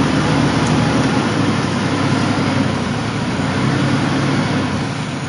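Heavy truck's diesel engine running steadily at low revs, a low hum under a steady hiss.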